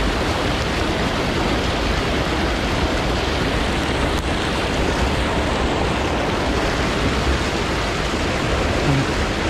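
Steady rush of moving river water, an even hiss that does not let up.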